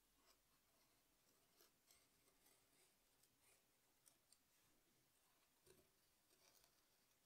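Very faint, intermittent scratching of a potter's needle tool drawn through a soft clay slab, cutting around a paper template.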